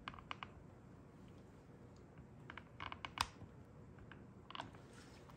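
Faint, scattered clicks and taps of a brass molding tool pressing and working damp holster leather around a plastic blue gun, with the sharpest tick about three seconds in.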